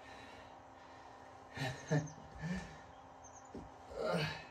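A man's short wordless vocal sounds, low grunts and breathy exhalations, a couple about two seconds in and a longer one near the end, over a faint steady hum.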